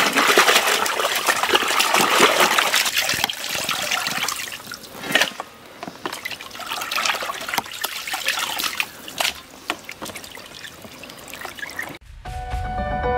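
Water splashing and sloshing in a plastic tub as hands swirl and rub cut duck pieces to wash them, loudest in the first few seconds and coming and going after that. The water sound stops about a second before the end, when music begins.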